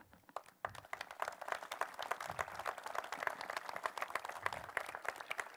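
Audience applauding, beginning about half a second in and holding at an even level.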